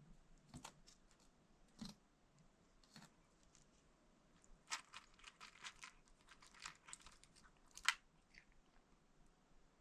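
Cat eating dry kibble: faint, irregular crunches, most of them bunched together from about halfway on, with one sharper crunch near the end.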